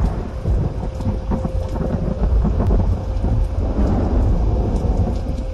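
Rain falling steadily, with a continuous deep rumble of thunder under it.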